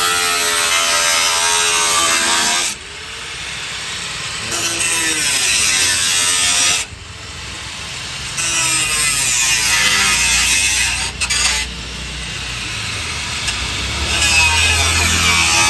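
Electric power tool cutting through the truck's sheet-metal wheel arch and fender lining in several spells, dropping away briefly about three times, its motor pitch shifting as it bites into the metal.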